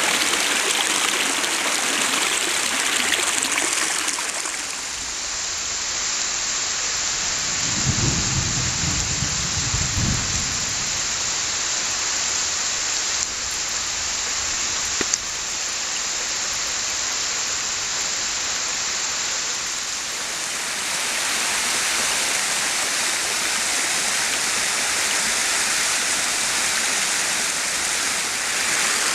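Heavy rain pouring steadily in a thunderstorm, with a low rumble of thunder about eight seconds in.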